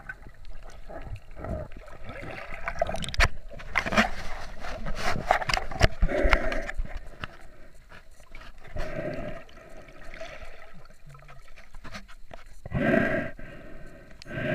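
Muffled splashing and bubbling of water around a camera held just under the surface among swimming snorkelers, with irregular knocks against the camera.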